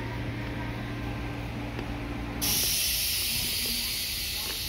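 Semboku Rapid Railway 9300-series electric train standing with a steady low hum from its equipment. About halfway through, a loud hiss of air starts suddenly and slowly fades: the train's air brakes releasing as it departs.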